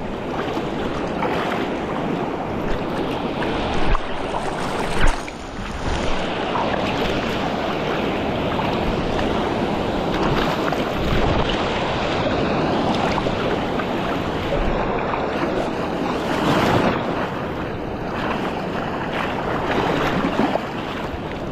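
Waves surging and washing around rocks: a steady rush of water with a few louder surges, about four and five seconds in and again near the end.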